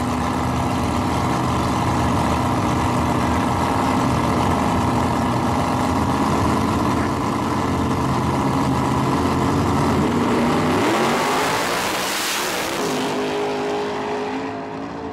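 Two drag-racing vehicles' engines run steadily at the starting line. About eleven seconds in, both launch and accelerate hard, rising in pitch, then fade as they pull away down the strip.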